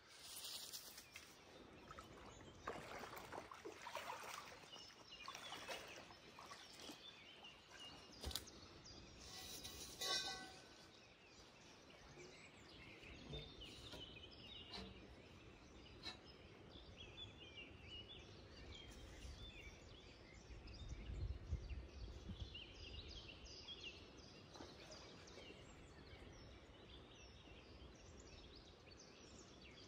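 Quiet outdoor ambience with small birds chirping faintly, and a few soft splashes and knocks from someone wading and handling poles in shallow water, the loudest about ten seconds in.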